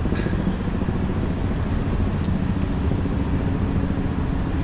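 Steady, unbroken rushing of a large mass of falling water from Iguazu Falls, heavy in the low end and even in level throughout.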